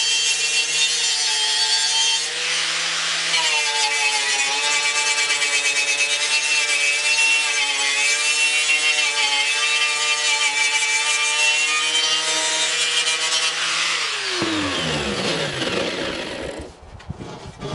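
Angle grinder with a knotted wire cup brush scrubbing paint and rust off a painted truck grille to prepare it for primer. The motor whines steadily under the scratchy wire noise. About fourteen seconds in, it is switched off and the whine falls away as it winds down.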